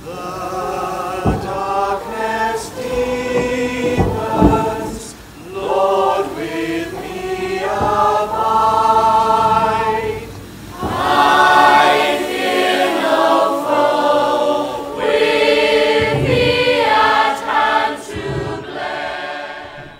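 A chorus of men's, women's and children's voices singing together, a choral number by a stage musical's company.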